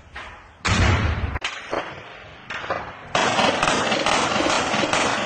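Gunfire: one loud shot with a heavy low thud about a second in, then from about three seconds in a dense, unbroken crackle of rapid gunfire.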